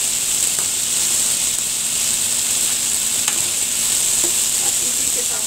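Boiled black chickpeas (kala chana) sizzling steadily as they fry in hot oil in a metal kadai, with a steel spoon ticking faintly against the pan a couple of times.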